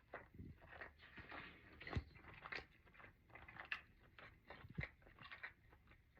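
Faint close-up mouth sounds of a person chewing tender smoked oxtail meat: scattered small wet clicks and smacks.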